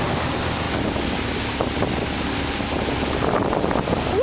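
Wind buffeting the microphone over the steady drone of a small motorboat's motor running at speed, with water rushing past the hull.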